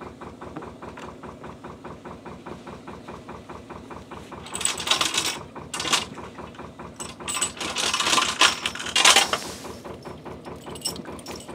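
Air-cooled Lister diesel engine idling with a steady, rapid beat. Over it, a mooring chain is pulled and rattled against a steel canal-side piling in several loud clattering bursts, starting about four seconds in.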